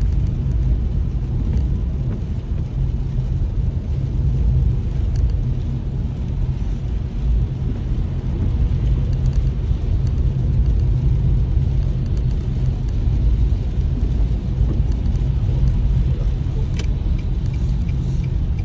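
Steady low rumble of a car's engine and road noise heard from inside the moving car.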